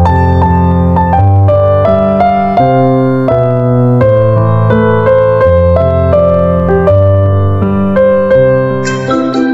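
Background piano music: a gentle melody of separate notes over held bass notes. Just before the end, a different, brighter piece of music cuts in.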